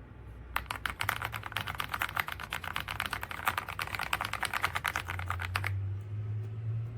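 Fast typing on an AULA S98 Pro mechanical keyboard: a rapid, dense run of key clicks, about ten a second, starting about half a second in and stopping abruptly near six seconds, over a low steady hum.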